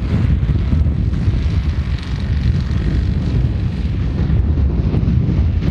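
Wind buffeting the microphone: a steady, dense low rumble with no distinct events.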